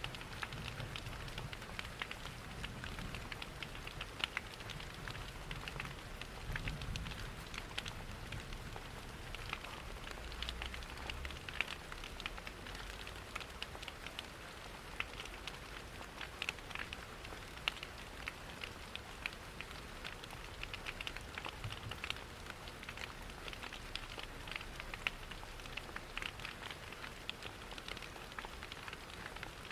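Steady rain hiss mixed with a crackling fireplace, many small sharp pops and ticks scattered through it. A low rumble sits underneath during the first several seconds.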